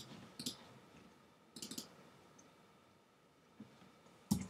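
A handful of separate clicks from computer mouse and keyboard use: a pair at the start, one about half a second in, a short cluster just before two seconds, and the sharpest one near the end.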